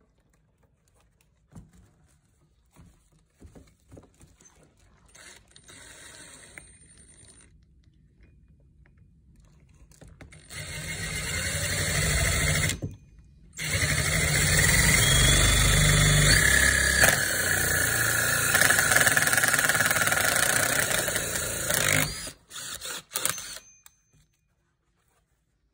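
Ridgid cordless drill spinning a 1¾-inch hole saw through a Lexan polycarbonate sheet. It starts about ten seconds in, stops briefly and restarts, runs steadily under load, and ends with a couple of short bursts. Faint handling clicks come before it.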